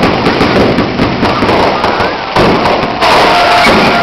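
Aerial fireworks bursting overhead: dense, loud crackling and popping, with sharp bangs about two and a half and three seconds in, and a thin whistling tone near the end.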